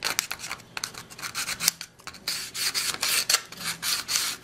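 Sandpaper rubbing back and forth on the edge of a hard plastic model-kit part, scuffing it matt so the glue will grip. A run of quick scratchy strokes, with a short pause about two seconds in.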